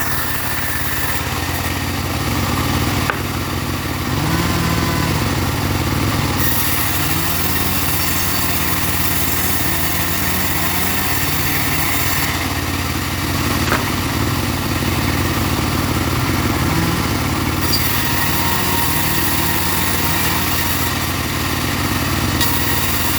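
Small engine driving a portable saw rig, running steadily under load with slight wavers in pitch and a high hiss that swells and fades over several seconds.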